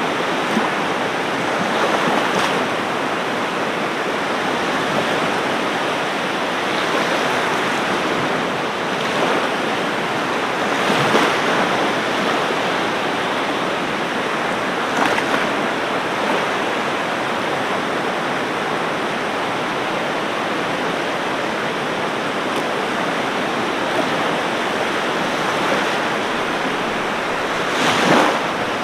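Ocean waves washing on a shore in a steady rush, with a few louder breaks, the loudest about eleven seconds in and near the end.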